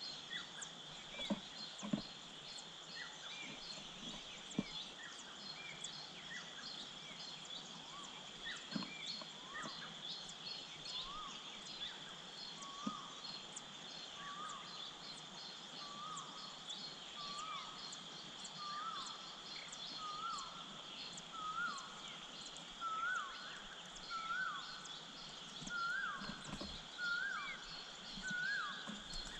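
A bird's short call repeated about once a second, getting louder and a little higher in pitch over the second half, over a steady high insect drone.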